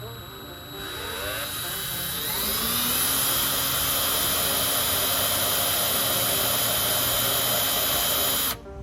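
Electric drill with a small bit spinning up with a rising whine, then running steady at speed while boring screw pilot holes, before cutting off suddenly near the end.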